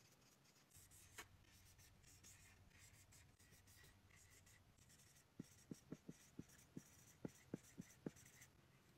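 Felt-tip markers scratching and sliding across a whiteboard as letters are drawn, faint, in short strokes. A quick run of about ten short, sharp sounds comes from about five and a half to eight seconds in.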